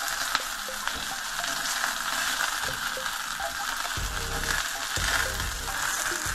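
Canola oil sizzling steadily in a stainless steel frying pan around panko-crumbed flathead fillets as they are lifted out with tongs, with light clicks of the tongs against the pan and two dull thumps about four and five seconds in.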